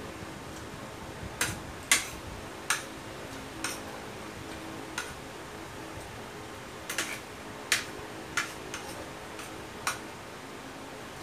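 Spoon clinking against a bowl and plate while eating: about a dozen short, sharp clicks at irregular intervals over a steady low hum.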